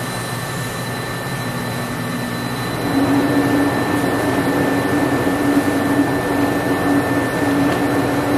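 Steady rushing mechanical noise with a few faint steady tones, getting louder with a strong low hum from about three seconds in.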